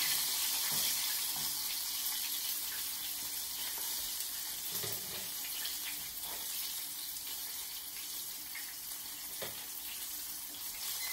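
Chicken tenders frying in hot oil in a cast-iron skillet: a steady sizzling hiss, with a few light clicks of metal tongs against the pan as pieces are lifted out.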